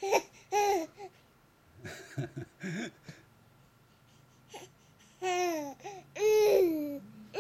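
Baby laughing and babbling in short bursts, then making longer high-pitched whiny sounds that fall in pitch near the end: a sleepy baby who can't settle.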